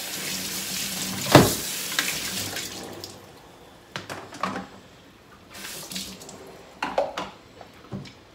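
Kitchen tap running onto a plastic lid in a stainless steel sink, with one sharp knock about a second and a half in; the water fades out about three seconds in. After that come a few short clatters and knocks of plastic containers being handled in the sink.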